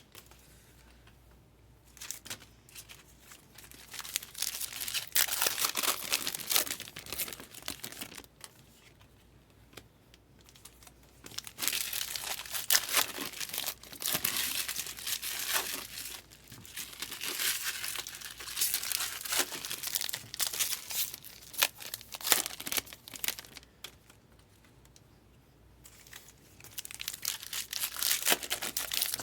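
Trading card packs being torn open and their wrappers crinkled by hand, in several stretches of crackling with short pauses between.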